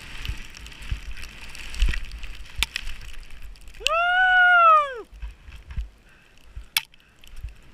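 Skis hissing through deep powder snow with scattered knocks, and about four seconds in a skier lets out a loud whoop lasting about a second that rises then falls in pitch.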